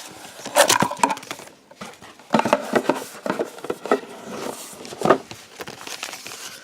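Cardboard packaging being handled and opened by hand: a run of rustling with small knocks and clicks, in a few busy spells.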